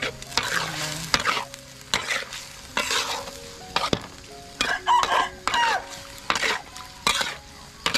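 Metal spatula scraping and stirring snails in a steel wok, a dozen or so irregular scrapes against the pan over the steady sizzle of the snails frying in lemongrass paste.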